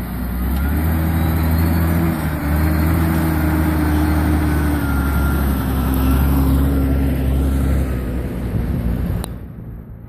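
Massey Ferguson tractor's diesel engine running as it drives past close by, rising slightly in pitch about two seconds in and dying away near the end, with a short click just before the end.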